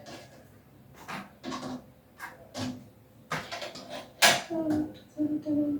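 Kitchen handling sounds: a series of separate knocks and clatters of dishes and utensils, the loudest about four seconds in. Short low voice sounds come in during the second half.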